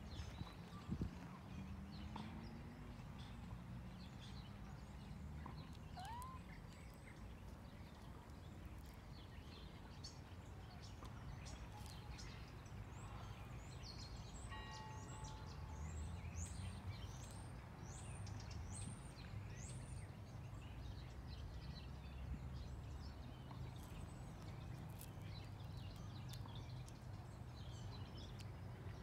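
Faint outdoor background: a steady low rumble with scattered bird chirps, including a run of about six quick rising chirps just past the middle.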